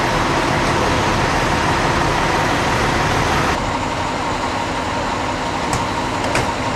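Fire trucks' engines running steadily, a dense rumbling noise with a faint held hum. The high hiss drops away at a cut about three and a half seconds in, and two faint clicks come near the end.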